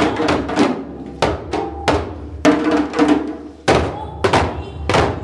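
Group of djembes played with bare hands: sharp slaps and open tones struck by several players together in an uneven rhythm, with a short lull about three and a half seconds in.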